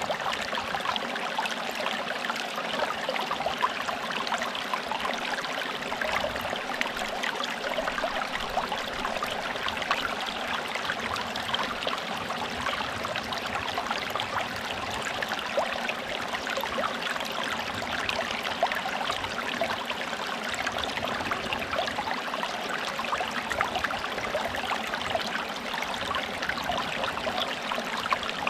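Forest stream flowing and babbling steadily over stones, a constant rush of water with fine splashing and trickling.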